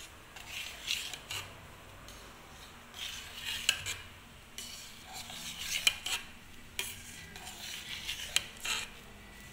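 Knife blade scraping and cutting through a set colostrum milk cake in a metal pot, scraping against the pot in several short strokes, with a couple of sharp clinks of metal on metal.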